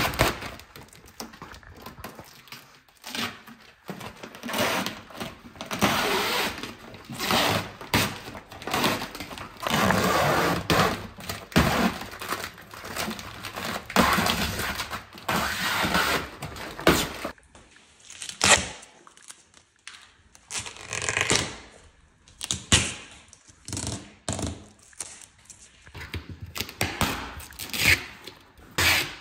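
Vinyl wrap film being peeled by hand off a car's painted body panels, in a series of irregular pulls, some long and some short.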